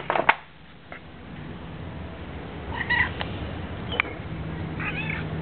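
A cat meowing in short calls while being handled: one about three seconds in and another near the end, with a few knocks of handling at the start.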